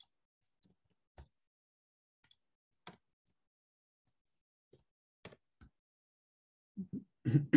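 Near silence broken by a few faint, scattered clicks, then a voice starts near the end.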